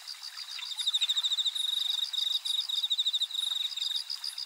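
Crickets chirping together: a fast, high trill in short bursts, with a second, slightly higher chirp repeating a few times a second.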